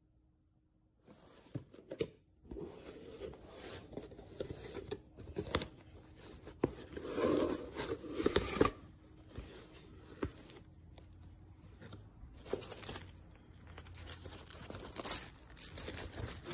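Cardboard box being opened and unpacked: irregular tearing, scraping and crinkling of cardboard and plastic wrapping, with sharp clicks and knocks, starting about a second in.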